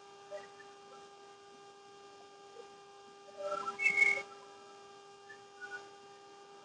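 A faint steady hum made of a few held tones. A little past halfway comes a short cluster of high, whistle-like chirps at several pitches.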